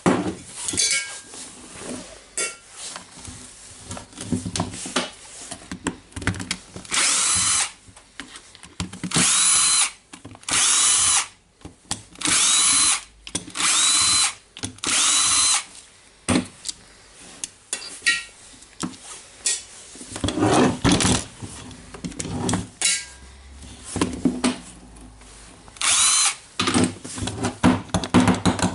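A cordless drill's motor runs in repeated short bursts of about a second each, its pitch bending as it spins up and down. Six bursts come in quick succession and one more comes near the end, with knocks and handling clatter between them.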